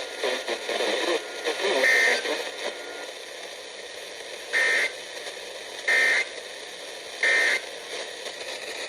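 Weather radio receiver: the tail of the broadcast voice in the first couple of seconds, then three short buzzing data bursts about a second and a half apart over steady radio hiss — the SAME end-of-message code that closes the NOAA Weather Radio tornado watch broadcast.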